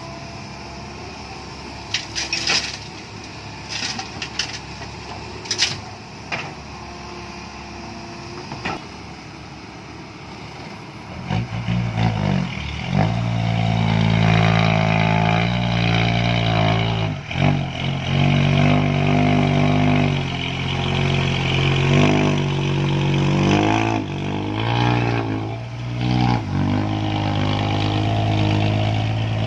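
A few sharp metallic knocks, then about 11 s in a heavy diesel engine of the excavator or dump truck comes up loud and runs on, revving up and down repeatedly.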